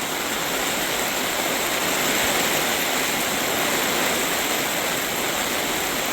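Heavy rain falling steadily with wind, a continuous even hiss that swells a little midway.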